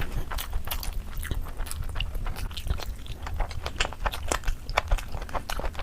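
A person chewing and biting into food, with a rapid, irregular series of crisp crunches and mouth clicks.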